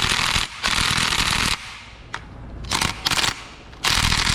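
Power wrench run in four short bursts of rapid hammering, each under a second long, breaking loose engine bolts.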